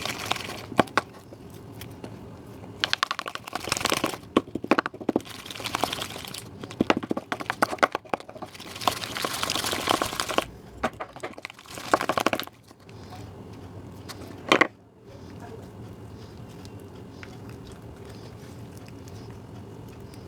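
Homemade slime being squeezed and stretched by hand, making bursts of wet crackling and popping clicks. The bursts stop after about twelve seconds, with one more sharp crackle a little later.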